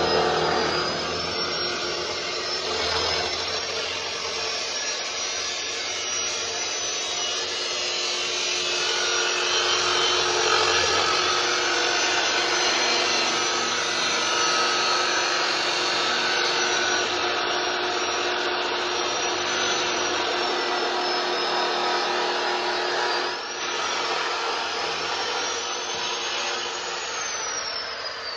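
Bosch GCO 220 abrasive cut-off saw cutting through steel: a loud, steady grinding from the disc, with a high whine that wavers as the blade bites. Near the end the whine falls steadily as the trigger is released and the motor spins down.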